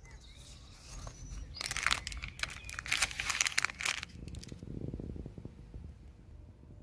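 Dense crackling and crinkling rustle, as of something being handled or crumpled close to the microphone, lasting about two seconds, then a softer, lower rustle.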